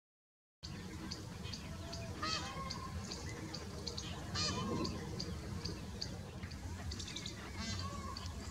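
Birds calling outdoors: short high chirps repeat about twice a second, with louder calls with curving notes about two seconds in, four and a half seconds in and near the end, all over a steady low rumble. It starts after half a second of silence.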